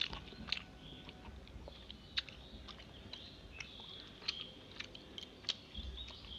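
Close-up chewing of rice eaten by hand, with irregular wet clicks and smacks of the mouth.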